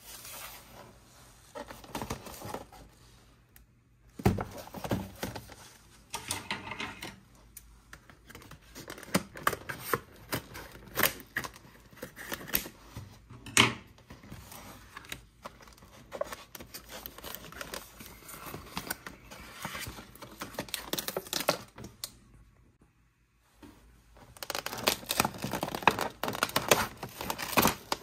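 Hands handling cardboard-and-plastic toy packaging: a series of taps, clicks and crinkles with short pauses, then a dense run of cardboard tearing near the end.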